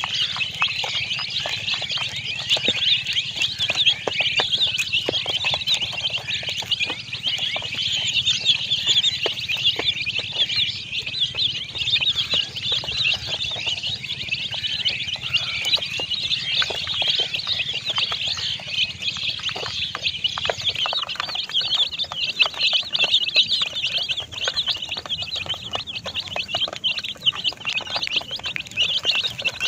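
A flock of baby chicks peeping shrilly and constantly, many voices overlapping, with scattered light clicks.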